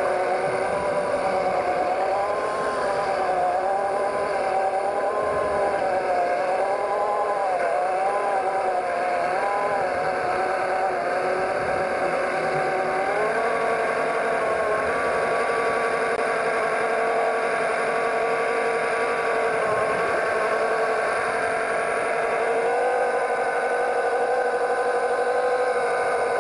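Steady motor drone heard underwater, its pitch wavering up and down for the first ten seconds or so, then stepping up about halfway through and holding steadier.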